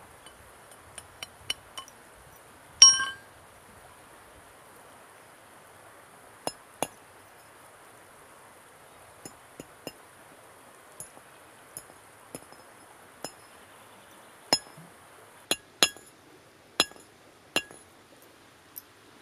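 Sharp metallic clinks, a dozen or more at irregular intervals, each ringing briefly; the loudest comes about three seconds in. A stream rushes steadily underneath.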